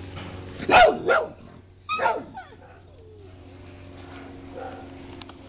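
A dog barking three times: two barks in quick succession just under a second in, and a third about a second later.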